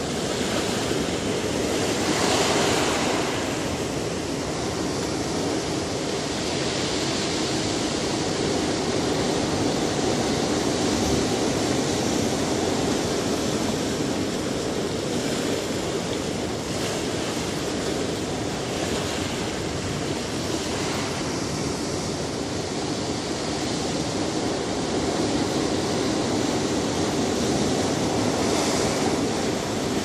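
Ocean surf breaking and washing among rocks: a continuous rush of water and foam that swells every few seconds as each wave comes in.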